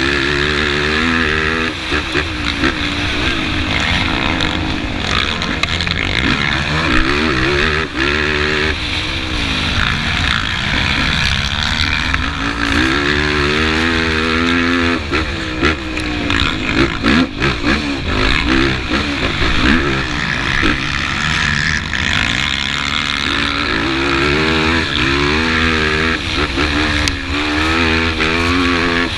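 Sport ATV engine at racing speed, its pitch climbing and dropping back again and again as the rider throttles and shifts, with steady wind rush and frequent sharp knocks and clatters from the rough ground.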